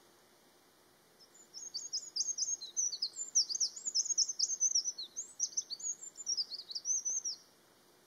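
Eurasian wren singing: one long song of rapid, very high notes and trills, starting about a second in and stopping abruptly near the end.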